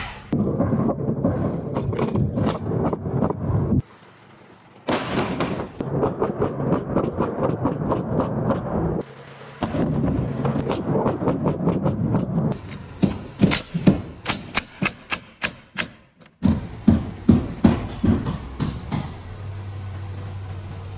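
Carpentry work on plywood in short cut-together clips: dense clattering, then a run of sharp knocks about three a second, then louder, irregular knocks, with a low steady hum near the end.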